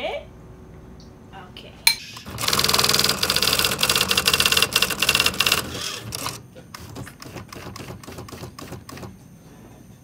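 Electric typewriter typing by itself. After a sharp click about two seconds in comes a fast run of strikes for about three seconds, the same letter hammered over and over. Slower separate keystrikes follow until near the end.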